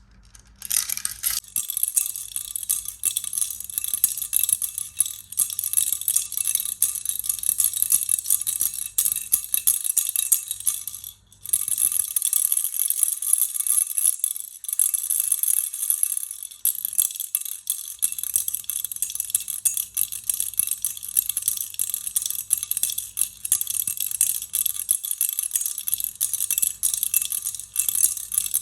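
Baby's toy rattle shaken continuously, a dense high jingling patter of small beads or bells. It breaks off briefly about eleven seconds in, then carries on.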